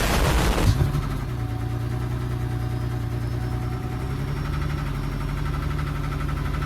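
Car engine firing up with a brief loud flare in the first second, then settling into a steady, even idle. It now sounds right after a part missed during the tune-up was refitted.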